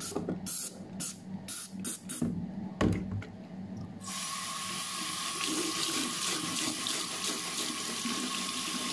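A string of short shaking strokes and one louder knock as cleaning powder is shaken from a cardboard box onto a shoe sole, then about four seconds in the bathroom tap opens and water runs steadily into the sink.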